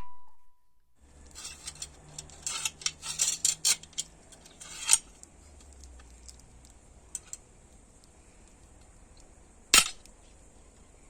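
Metallic clicking and clattering, as of a homemade rifle's action being worked: a busy run of clicks over the first few seconds, then one sharp, louder snap near the end.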